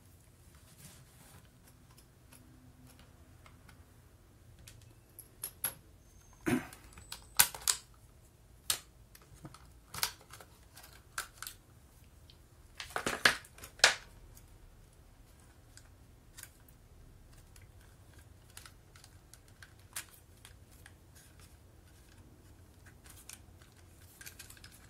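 Scattered clicks and light knocks of a Toshiba Walky KT-RS1 cassette player's plastic case being handled and taken apart. The loudest clatter comes in two clusters, about seven seconds in and about thirteen seconds in.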